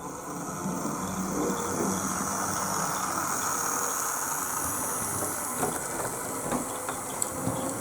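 An OO gauge model Class 08 diesel shunter's small electric motor running steadily as the loco crawls along the track through a double point, with a few sharp clicks in the second half as its wheels cross the point work.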